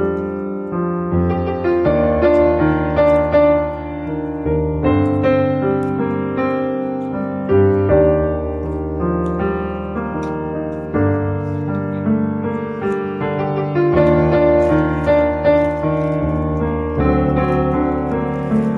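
Background piano music: a keyboard piece with notes and chords changing about every second.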